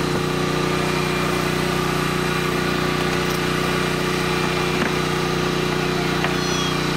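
A small engine running steadily at a constant idle: an even, unchanging hum.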